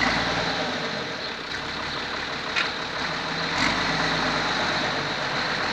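Fiat 980 DT tractor's diesel engine running steadily while the tractor backs its rear loader bucket into a pile of wet material, with a couple of faint clicks partway through.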